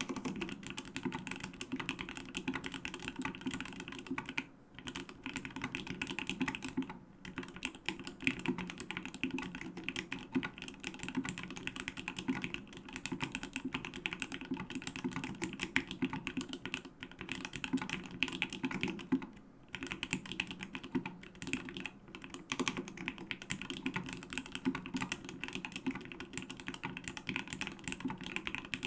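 Typing on a Duck Orion V3 custom mechanical keyboard: Krytox-lubed Geekmaker Creamy Yellow switches under dye-sub keycaps on an aluminium plate, with no sound-absorbing pad. A steady, fast run of keystrokes, with brief pauses about four and a half, seven and nineteen seconds in.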